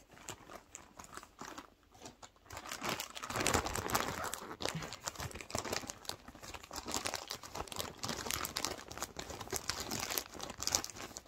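Plastic mailing bag crinkling and crackling irregularly as it is pulled and torn open by hand, busier from about three seconds in.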